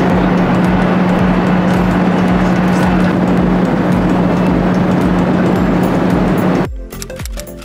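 Airliner jet engine noise: a loud, steady rush with a steady low hum that starts and cuts off suddenly, with music faintly underneath.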